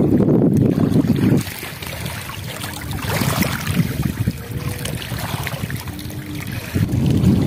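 Wind buffeting the microphone in gusts, heaviest in the first second and a half and again near the end, over the soft lapping of small river waves against a muddy bank.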